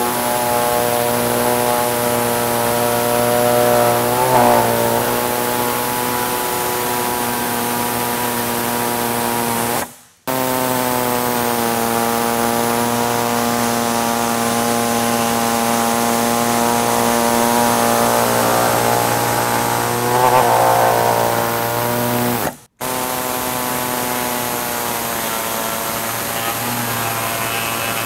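Pneumatic reciprocating saw running steadily with a buzzing tone as its blade cuts through the plastic vertical uprights of a pickup grille, the pitch sagging a little and roughening as the blade bites. It cuts out abruptly twice and starts again.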